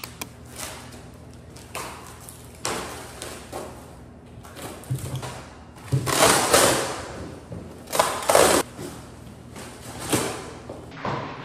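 Protective plastic wrap being cut with scissors and pulled off a new table: a series of crinkling, ripping bursts, the two loudest and longest about six and eight seconds in.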